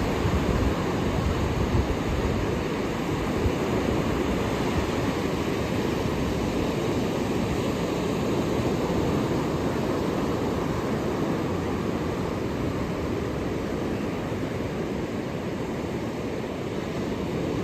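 Ocean surf: a steady, low rush of breaking waves with no single wave standing out.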